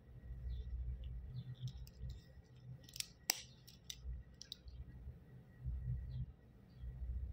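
Stainless-steel link bracelet of a Fossil watch clicking and clinking as it is handled and taken off the wrist, with one sharp click about three seconds in, the loudest sound.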